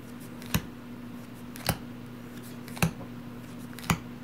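Board-game cards being laid down one at a time: a sharp snap about once a second, four times, over a low steady hum.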